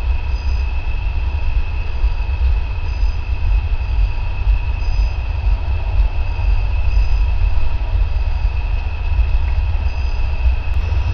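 Steady low rumble with a constant high-pitched tone: background noise picked up through a cheap security camera's microphone, with no distinct event.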